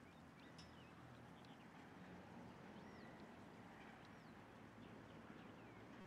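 Faint, scattered short bird chirps, many brief rising and falling notes, over a quiet steady low hum: outdoor near silence.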